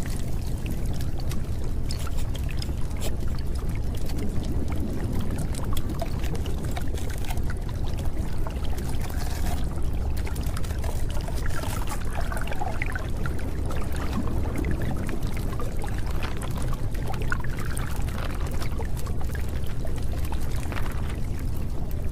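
Steady, unbroken water noise like rain or pouring water, heaviest in the low range: the masking track of a subliminal audio.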